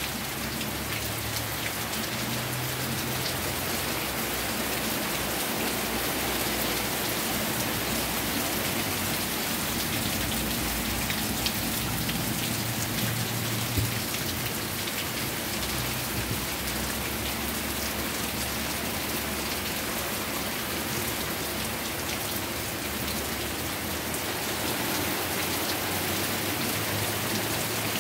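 Steady rain falling, an even hiss, with a couple of brief louder taps near the middle.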